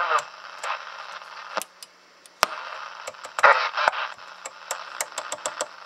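Cobra 29 LTD ST CB radio's rotary channel selector clicking through its detents as the channels are stepped, a dozen or more sharp clicks at uneven spacing. Between the clicks the speaker gives short bursts of static and broken radio chatter.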